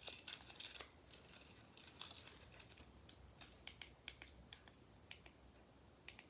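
Faint, irregular light clicks and clinks of car keys and key fobs being handled.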